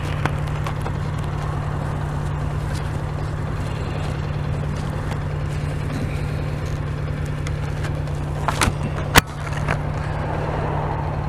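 Honda NC750X parallel-twin engine idling steadily while the motorcycle stands in traffic. Two sharp knocks come near the end, the second louder.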